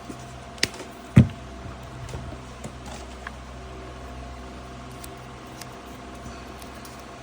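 Handling noises from wiring work: a sharp click, then a louder low knock about a second in, and a few faint ticks, over a steady low electrical hum.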